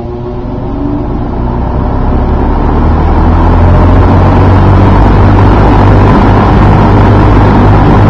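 An old McGraw-Edison Eskimo two-speed box fan spinning up. The motor and blades build speed and the rush of moving air grows louder over about four seconds, then holds steady and strong.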